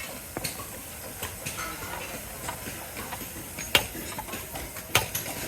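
Factory floor noise: a steady hiss with irregular sharp clicks and knocks, two louder knocks a little over a second apart in the second half.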